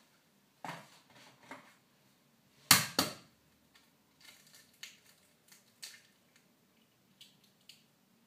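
An egg cracked by hand: two sharp knocks of the egg struck against a bowl rim about three seconds in, then light clicks and crackles of the shell being pried apart.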